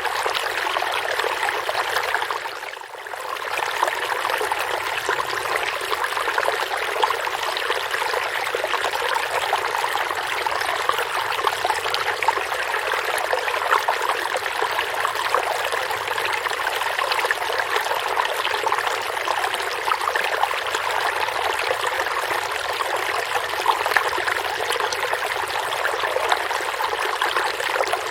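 Forest stream of water running steadily, a continuous rushing and trickling, with a brief dip in level about three seconds in.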